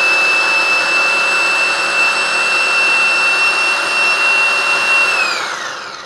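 Wagner Paint Crew paint sprayer's electric motor and pump cranked all the way up, a loud high-pitched whine held steady, then winding down about five seconds in.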